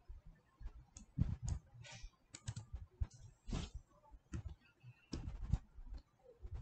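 Computer keyboard keys and mouse buttons clicking: a dozen or so short, irregularly spaced taps and clicks while a value is typed in.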